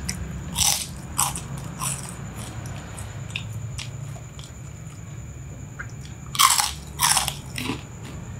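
Crunching bites and chewing of crispy fried pork-skin crackling (rambak kulit babi): a few crunches in the first two seconds, small crackles while chewing, then two loud crunches near the end.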